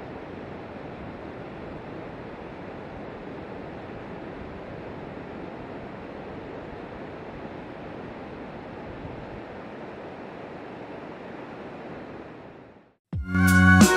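Steady, even rushing of water that fades out about a second before the end. Then music with a strong beat begins.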